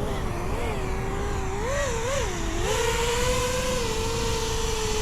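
FPV racing quadcopter's brushless motors whining, the pitch dipping and rising with quick throttle changes, then holding a steady higher whine with a growing rush of air through the last couple of seconds.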